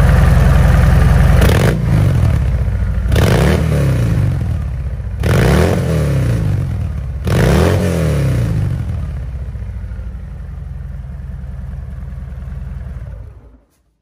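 Harley-Davidson FXDR 114's Milwaukee-Eight 114 V-twin revved through a baffled exhaust: held high for a second or so, then four throttle blips about two seconds apart, each falling back, before settling to a steady idle. The sound cuts off just before the end.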